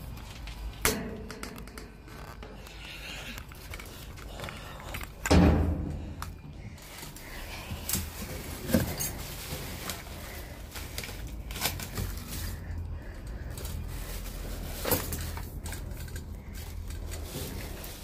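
Trash in a metal dumpster being handled and shifted: cardboard boxes and bagged packaging knock and scrape, with scattered short knocks and one louder thump about five seconds in.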